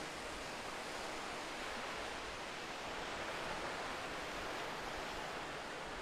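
Small waves washing onto a sandy beach: a steady rush of surf that swells a little midway.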